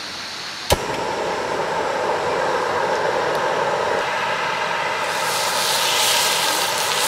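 A camping gas burner under a round griddle pan clicks alight and runs with a steady rushing flame. About five seconds in, a slab of raw beef laid on the hot pan starts sizzling.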